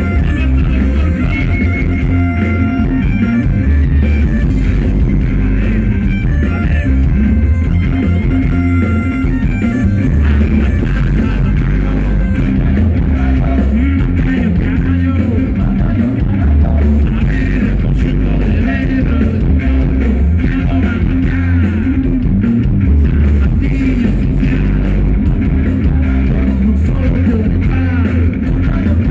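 Live rock band playing through a PA, heard from the crowd: electric guitars, bass guitar and drums, with a heavy, booming bass end.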